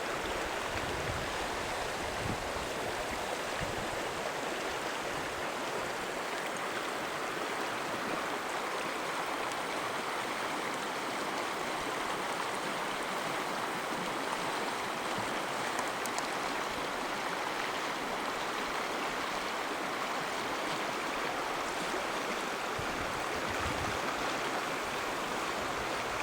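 The Arkansas River flowing over its bed: a steady, even rush of moving water. The river is running low for late May because of a light winter snowpack.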